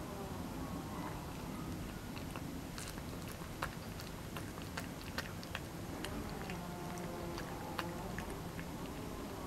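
A cat eating wet cat food close up: irregular small wet clicks and smacks of chewing and licking, most frequent in the middle of the stretch.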